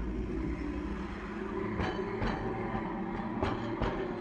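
Hankai Tramway streetcar no. 353 rolling past close by at low speed, with a steady rumble. Four sharp wheel clacks on the rails come in the second half.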